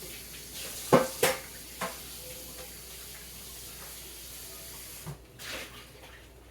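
A kitchen tap running into a sink while a pan is washed, with several loud clanks of the pan against the sink. The water shuts off about five seconds in, followed by a couple more knocks.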